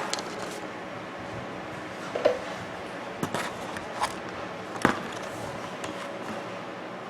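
A few short, sharp clicks and knocks as a new battery-powered clock movement is handled and fitted into the clock case. The loudest knock comes near the end.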